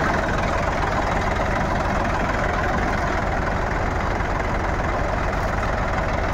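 Farm tractor's diesel engine running at a steady speed, with a rattly, even note.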